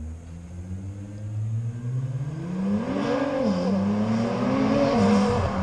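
Nissan GT-R R35's twin-turbo VR38DETT V6, through a newly fitted aftermarket full exhaust, accelerating hard: the engine note climbs, drops at an upshift a little over three seconds in, then climbs again, loudest near the end as the car comes by.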